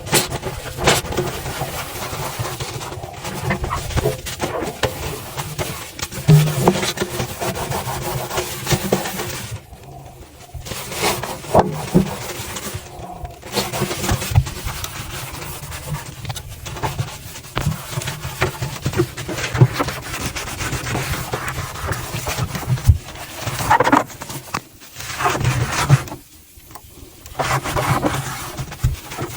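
Hand-cleaning of a washing machine: irregular rubbing and scraping with scattered knocks and clicks, pausing briefly a few times.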